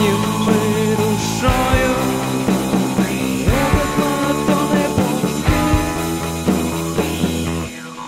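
Rock song playing, with sliding melodic lines over bass and drums; the low end drops out and the music falls away shortly before the end.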